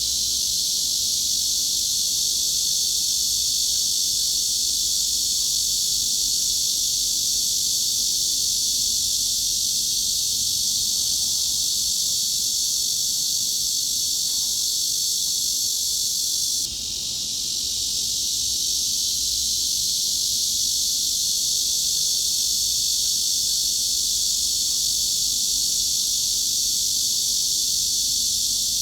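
Cicadas droning in one steady, dense, high-pitched buzz. The level dips briefly a little over halfway through, then climbs back.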